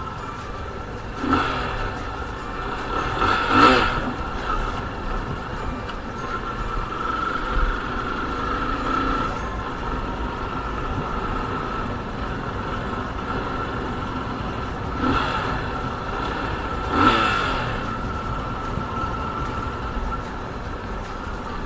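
Yamaha FZ25 motorcycle being ridden, with steady engine and road noise. Four louder passing swells come in two pairs, one near the start and one past the middle.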